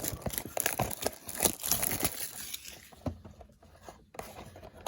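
Plastic trading-card packaging being torn open and crinkled, a dense crackling with sharp snaps that thins out after about three seconds.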